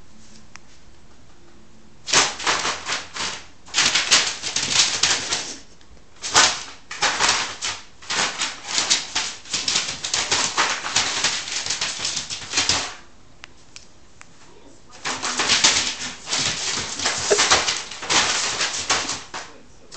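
A cat pouncing and scrabbling on a large sheet of paper, the paper crinkling and crackling in quick runs of sharp rustles. It starts about two seconds in, pauses for a couple of seconds past the middle, then starts again.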